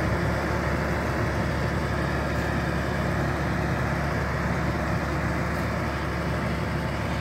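Farm tractor's diesel engine running steadily under load as it pulls an implement across a field.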